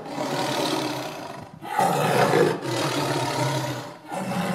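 Tiger roaring several times in a row, each roar rough and loud.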